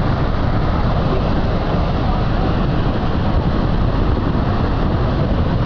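Niagara Falls: a loud, steady rush of falling water.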